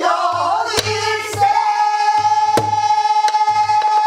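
A woman singing a Korean folk song (minyo), her line wavering at first and then held on one long, steady note from about a second and a half in. A buk barrel drum accompanies her in a slow rhythm, with sharp stick strokes and low thumps on the drumhead.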